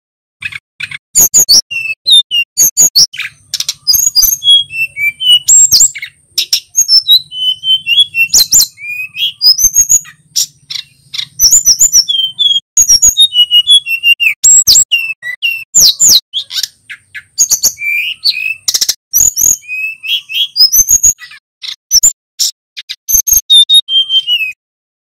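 Male sikatan gunung (mountain flycatcher) singing hard in a cage: a fast, busy stream of sharp high chips mixed with short downslurred whistles, in phrases with brief gaps, cutting off just before the end.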